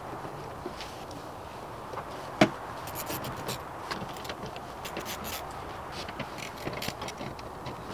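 A sharp knock about two and a half seconds in, then a run of light clicks and rattles from hand tools and small hardware being handled, over steady background noise.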